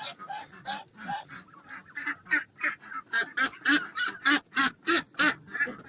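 Domestic ducks calling in a run of short, repeated quacks, about three a second and louder in the second half.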